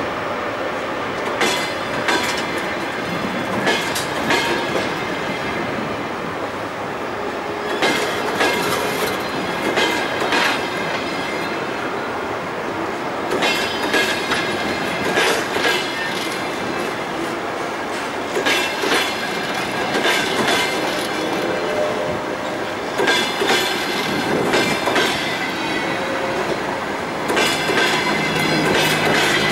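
Passenger coaches of a departing train rolling past, their steel wheels clacking over rail joints in a cluster of sharp knocks about every five seconds, over a steady rolling rumble.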